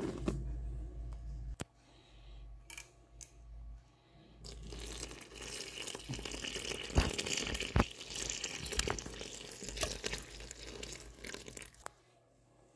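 A thin stream of liquid pouring onto a heap of flour in a stainless steel mixing bowl: a steady hiss with small scattered clicks, starting about four seconds in and stopping shortly before the end. At the start, a sharp knock as flour is tipped into the bowl.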